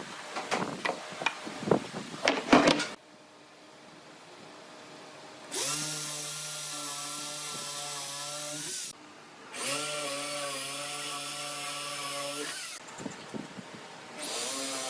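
Several sharp knocks and taps, then a power tool's motor spins up, runs steadily for about three seconds and stops. This happens twice, and the motor starts a third time near the end.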